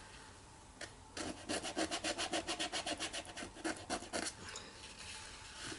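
Short stiff scrub brush rubbed quickly back and forth on watercolour paper, several strokes a second, lifting and softening the paint at the edge of a painted stone. The scrubbing starts about a second in and stops a little past halfway.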